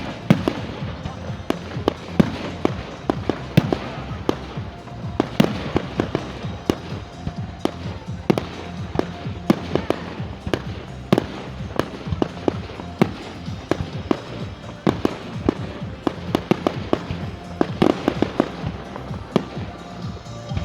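Fireworks display: shells bursting in quick, irregular succession, many sharp bangs and cracks, with music playing underneath.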